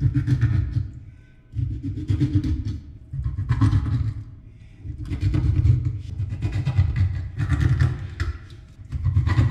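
Hands rubbing salt into fish on a wooden cutting board, coming through as a series of low, rubbing bursts, about seven of them, each a second or so long.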